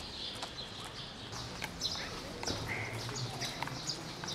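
Small birds chirping repeatedly over a low outdoor rumble, with the sharp clicks of footsteps on hard pavement.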